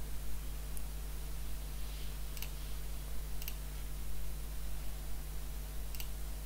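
A few sharp computer mouse clicks, spaced a second or more apart, over a steady low electrical hum.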